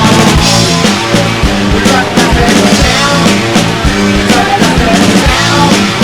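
Loud rock music from a full band, with a drum kit keeping a regular beat under dense instruments.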